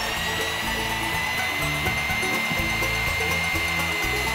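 Corded electric drill with a long auger bit boring a peg hole into a timber post, its motor running at a steady high whine while the bit cuts into the wood.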